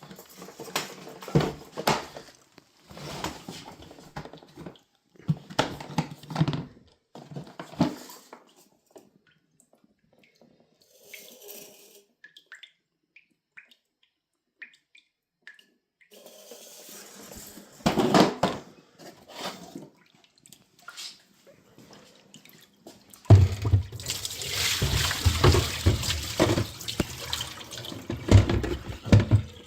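Water splashing and pouring in irregular spells, with a quiet lull in the middle and the loudest, longest stretch near the end: standing water from a clothes washer that won't drain.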